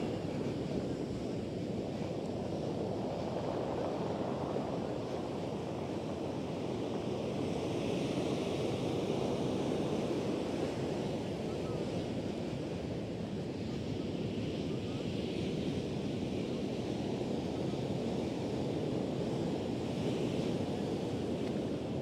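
Atlantic surf washing onto a sandy beach: a steady rush of waves that swells and eases slowly over several seconds, with some wind on the microphone.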